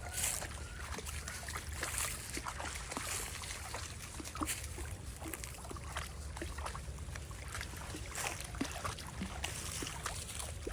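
Small woodland creek trickling and babbling: many small irregular splashes and pops over a hiss, with a steady low rumble underneath.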